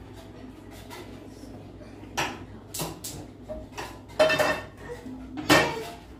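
Cookware being handled on a stove: several sharp metal knocks and clinks of pots and a frying pan, a couple of them ringing briefly, with the loudest one near the end. A steady low hum runs underneath.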